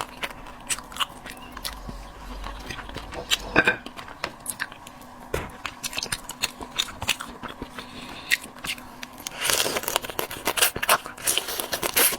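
Crab being eaten close to the microphone: a run of sharp clicks and crunches of shell being cracked and picked apart, with chewing. The clicks grow dense near the end.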